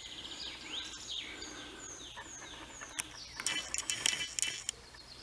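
Songbirds singing in woodland: a run of short, high, descending whistled notes repeating about twice a second, with a quick burst of sharp high notes about three and a half seconds in.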